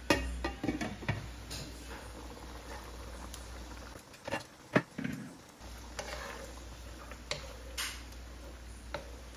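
Glass wok lid clattering against the rim of a nonstick wok at the start, a few sharp taps about halfway, then light scraping and clicks of a wooden spatula stirring the simmering coconut curry near the end.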